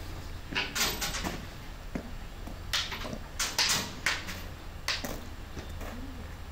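Irregular crunching footsteps on gravel: a quick cluster of steps about a second in, then several more from about three to five seconds in, over a faint steady low hum.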